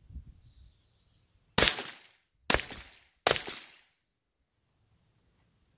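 Three .22 rifle shots, a little under a second apart, each sharp crack followed by a short fading echo.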